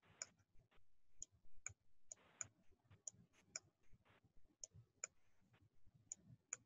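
Faint, irregular clicks, about one and a half a second, from a stylus tapping on a tablet as handwriting is added.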